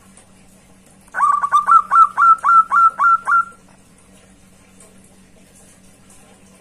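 Zebra dove (perkutut) calling: a run of about a dozen short coo notes, the first few quick, the rest evenly paced, lasting a little over two seconds.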